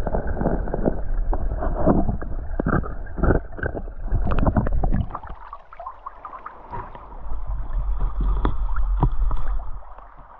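Shallow creek water sloshing and gurgling around a hand and camera working in the pool, full of small splashes and clicks, easing off about halfway through, then a few drips falling back into the water.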